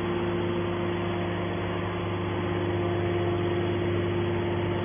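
Hydraulic can baler running with a steady, even hum from its motor and pump.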